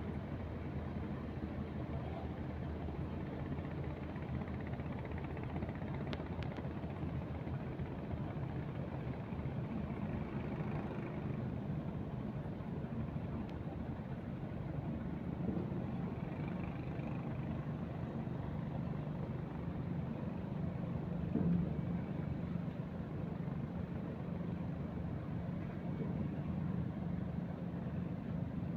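An engine running steadily, a low drone that holds an even pitch throughout.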